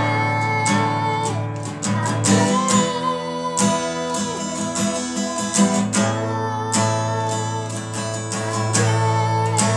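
A child singing while strumming chords on a cutaway acoustic guitar.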